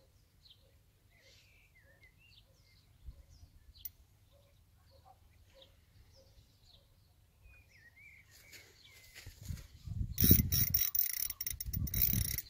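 Faint bird chirps at first, then about ten seconds in a loud, rapid ratcheting click from a fishing reel that runs on for a couple of seconds.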